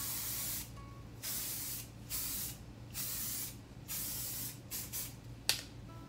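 Aerosol can of Davines dry texture spray hissing in repeated short bursts, about one a second, as it is sprayed up into the hair. A sharp click sounds near the end.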